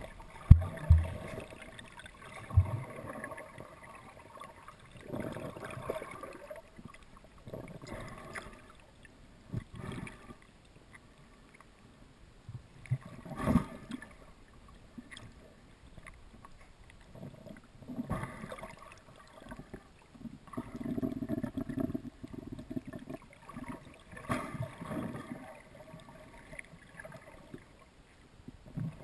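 Muffled water sloshing and gurgling heard through a submerged camera housing, with irregular bumps and knocks as the camera is moved underwater; the sharpest knocks come near the start and about halfway through.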